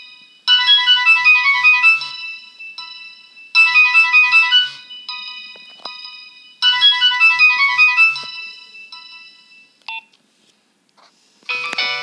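Nokia 2600 polyphonic ringtone playing through the phone's small speaker: a bright phrase of quick descending notes, played three times with short pauses between. The tone stops shortly before the end, and a different ringtone starts just before the end.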